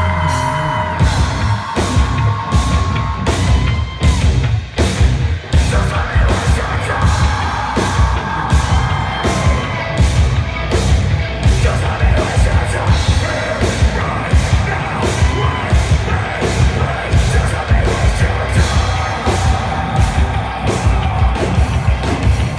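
A live heavy rock band playing loud, with drums hitting a steady beat about twice a second under yelled vocals. There is a short break about four to five seconds in.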